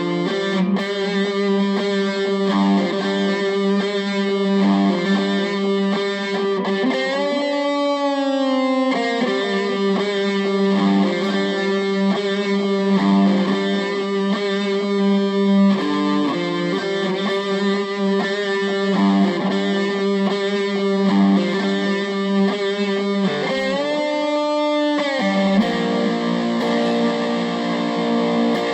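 Epiphone Les Paul Special VE electric guitar played through an amp: sustained notes and chords over a repeated low note, with string bends about eight seconds in and again about twenty-four seconds in.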